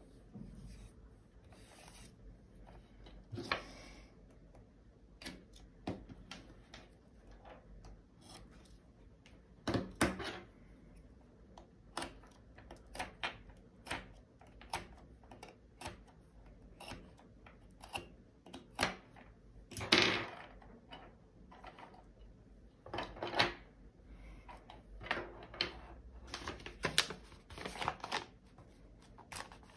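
Hands sorting a diamond painting kit into small plastic storage containers: irregular clicks and taps of containers and lids, with a few short rustles of drill bags, the loudest about twenty seconds in.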